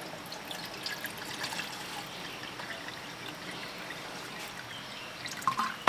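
Water trickling steadily, with scattered light drips and ticks.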